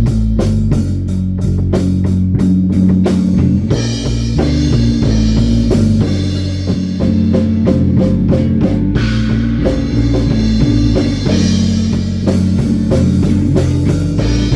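Instrumental rock band jamming: guitar and bass over a steady drum-kit beat.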